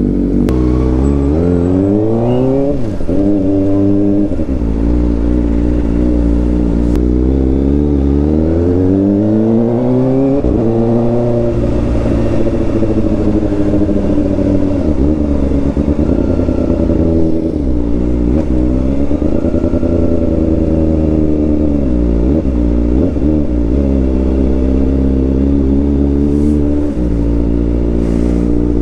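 Kawasaki Ninja ZX-4RR's 399 cc inline-four running through an SC Project slip-on exhaust, pulling up through the revs under load: the pitch climbs for several seconds and drops back twice, as at gear changes, then holds nearly steady with small dips.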